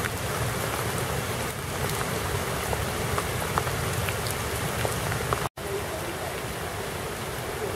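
Heavy rain pouring onto floodwater: a steady hiss with scattered sharp drop hits. The sound breaks off for an instant about five and a half seconds in.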